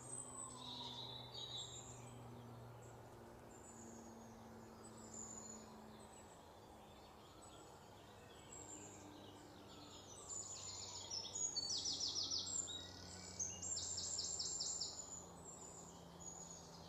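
Faint birds chirping: scattered short high calls, then two runs of quick repeated trilled notes about two-thirds of the way through, over a low steady hum.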